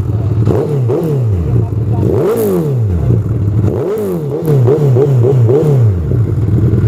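Suzuki Hayabusa's inline-four engine revved from idle in repeated quick throttle blips, its pitch rising and falling about a dozen times, with two longer revs in the middle, to show off the exhaust note.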